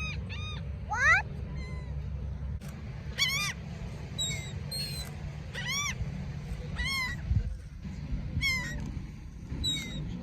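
Birds calling repeatedly in short arched cries: a quick run of calls at the start, a loud rising call about a second in, then single calls about every second. These are the calls of birds the uploader describes as angry and hungry, looking for food for their young. A steady low rumble lies underneath.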